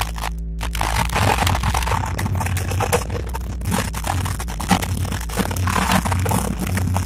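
Dense, crackly din of a large outdoor crowd, with rough scraping and rustling close to the microphone and a steady low hum underneath.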